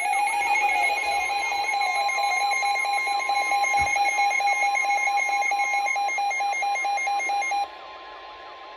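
Emergency alert attention tones: a loud electronic alarm alternating rapidly between pitches over a steady high beep, sounding ahead of a broadcast special marine warning. The alternating alarm cuts off abruptly near the end, and the steady beep carries on alone.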